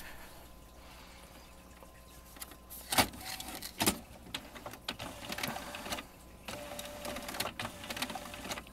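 Inkjet printer starting a print job: quiet for a couple of seconds, then two clicks about a second apart, then its motors whirring and clicking as it begins to feed the sheet.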